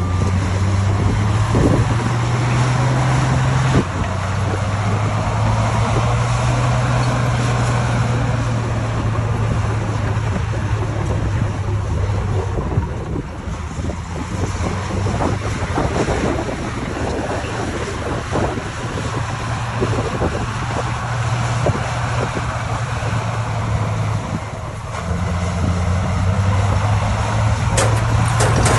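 Diesel engine of heavy earthmoving machinery running under load. Its low drone shifts pitch a few times, with a few sharp knocks.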